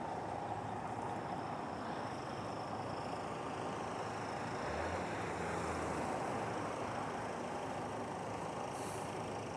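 Steady city street traffic noise from passing vehicles, with a low rumble swelling briefly about five seconds in.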